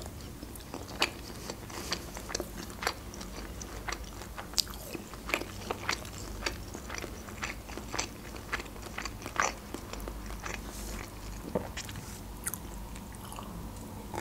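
Close-miked chewing of a mouthful of sushi rolls: wet mouth sounds with irregular sharp crunches and clicks, one or two a second.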